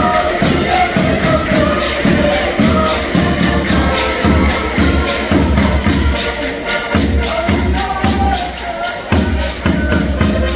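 Portuguese folk dance music played live: an accordion melody over a steady beat on a rope-tensioned bass drum.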